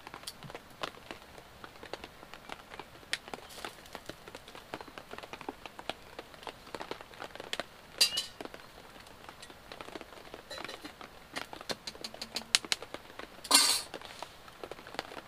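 Rain dripping onto a tarpaulin overhead: many scattered, irregular sharp ticks. A couple of louder knocks or rustles stand out, about eight seconds in and again near the end.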